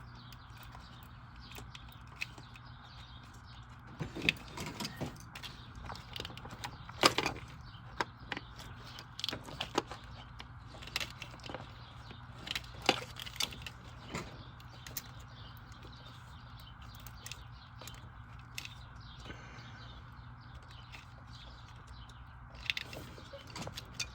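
Scattered clicks, taps and knocks of hands and tools working on engine parts while a PCV valve is being replaced, the loudest about 7 and 13 seconds in, over a steady low hum.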